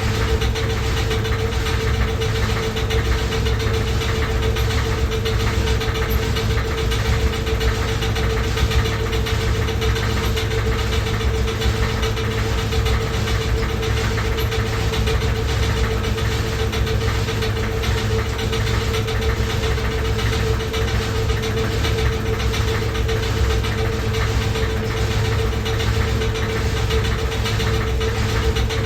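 Loud washing machine running: a steady drone with a constant mid-pitched hum over a low rumble and a faint, even, fast beat.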